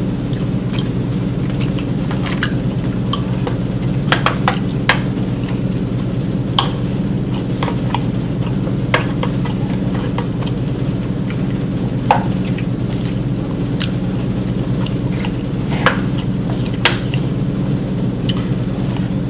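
Eating sounds: a plastic fork clicking and scraping against an aluminium foil pan of food, with chewing, as a dozen or so short irregular clicks over a steady low background hum.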